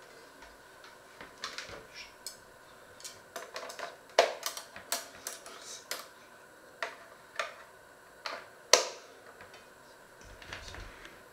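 Irregular clicks and clinks of metal mixer attachments being handled and fitted into an electric hand mixer, with two louder knocks, one about four seconds in and one near nine seconds.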